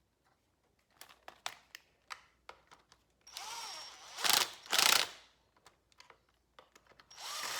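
A ratchet wrench clicking in short runs as two nuts are run back down on a chainsaw, after a few light clicks of parts and tools being handled. There are two louder ratcheting strokes about four and five seconds in, and another run starts near the end.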